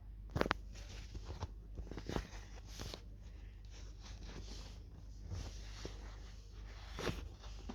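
Faint handling noise: a few soft clicks and taps over a steady low hum, the clearest about half a second in, another near two seconds and one near the end.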